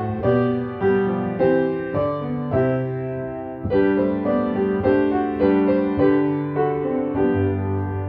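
Solo piano playing a slow, gentle piece: chords and melody notes struck at a steady pace of about two a second, each ringing and fading.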